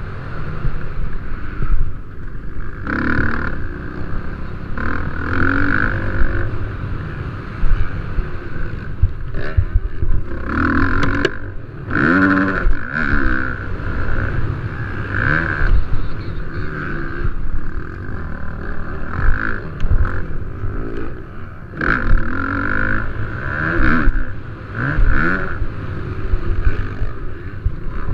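Motocross dirt bike engines racing, the engine pitch repeatedly rising on the throttle and dropping back.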